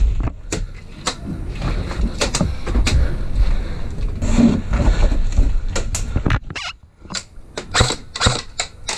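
Irregular knocks, clicks and rustling from a player's gear and rifle being handled while moving about inside a wooden cabin, over a low rumble.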